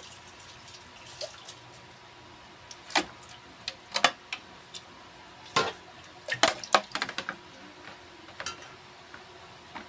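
Kitchen handling sounds: several sharp clinks and knocks of stainless steel bowls, with some wet splashing, as chicken blood is handled in a steel basin. The knocks are bunched in the middle few seconds over a faint steady hiss.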